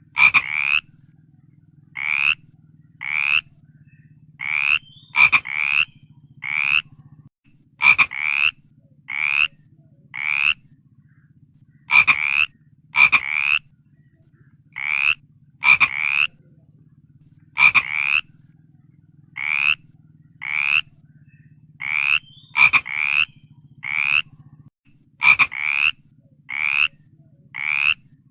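A frog croaking over and over in short, pulsed calls, roughly one a second and often in pairs, each with a sharp click at its onset. A faint steady low hum runs underneath.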